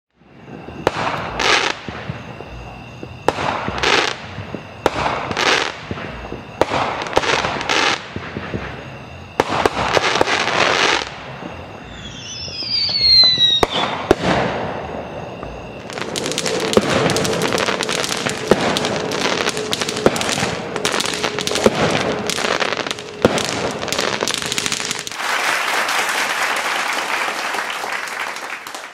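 Aerial fireworks going off: single booms about a second apart, then several whistles falling in pitch, building to a dense barrage of rapid bangs and crackling, and ending in a few seconds of steady hiss.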